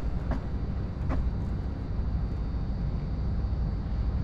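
Steady low outdoor rumble, with two faint footsteps about a second apart near the start.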